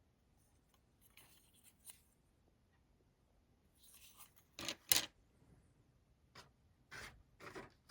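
Plastic model-kit sprues being handled: light rustling, then a run of sharp clicks and taps as the parts are moved, the loudest about five seconds in.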